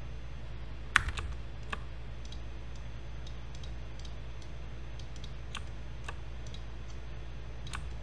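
Sparse clicks of computer keyboard keys and mouse buttons, the loudest about a second in, over a steady low hum.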